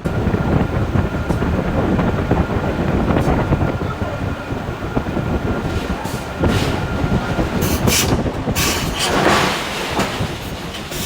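Heavy forge-shop machinery rumbling and clattering steadily, with a faint high steady whine over the first half.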